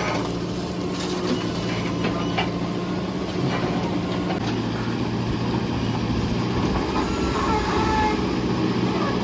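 Backhoe loader's diesel engine running steadily under work, with a few faint knocks.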